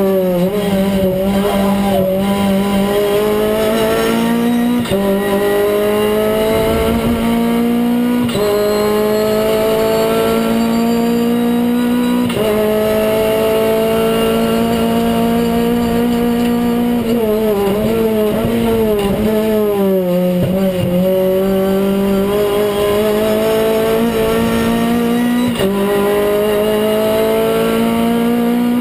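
Renault Clio Cup race car's four-cylinder engine under full throttle, heard from inside the cockpit: the pitch climbs steadily and drops sharply at each upshift, about four times, and falls and wavers about two-thirds through as the car slows for a corner before pulling hard again.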